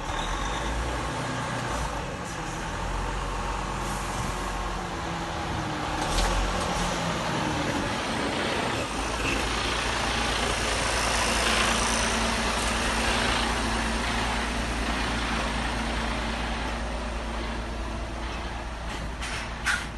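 Mercedes-Benz semi-truck's diesel engine running as the truck rolls slowly past at close range, with tyre and trailer noise that swells as the cab goes by. A couple of sharp clicks come near the end.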